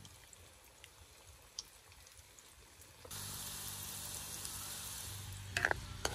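Pumpkin dough balls deep-frying in hot oil in an iron wok: a dense, steady sizzle that starts abruptly about three seconds in, after a quiet start. A few sharp clicks come near the end.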